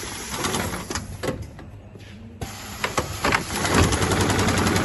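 Dürkopp Adler heavy-duty sewing head on an automatic CNC belt-sewing machine: a few sharp mechanical clicks and knocks, then, about three-quarters of the way in, the head starts stitching in a fast, even rattle.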